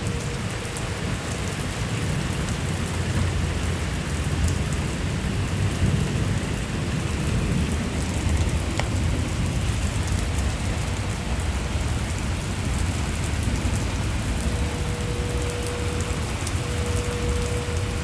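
Steady rain with a low rumble underneath. From about three-quarters of the way in, the faint steady tone of a distant tornado siren comes in.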